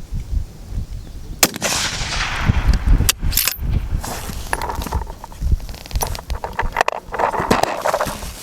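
A .308 fullbore target rifle shot about a second and a half in, its report dying away over the range, with a few more sharp cracks around three and seven seconds in. Wind rumbles on the microphone throughout.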